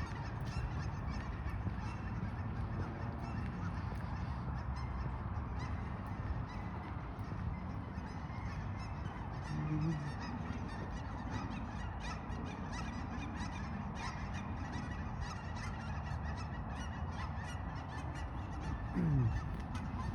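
A large flock of waterfowl calling and honking steadily over a low rumble. A brief, louder low sound comes about halfway through, and a low sound falls in pitch near the end.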